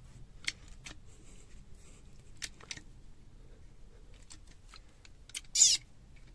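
Hand-pumped hydraulic crimping tool working a lug onto a heavy battery cable: scattered light clicks, then a brief high-pitched squeak about five and a half seconds in.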